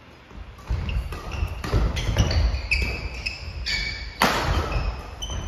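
Badminton doubles rally on a wooden gym floor, starting under a second in: rackets hitting the shuttlecock, shoes squeaking and feet thudding on the boards, with one loud sharp hit about four seconds in.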